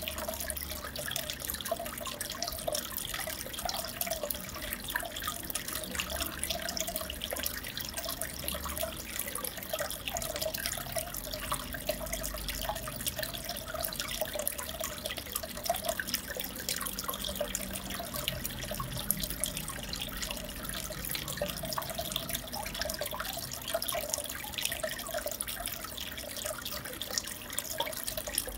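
Aquarium water trickling and bubbling steadily, with many small drips and pops.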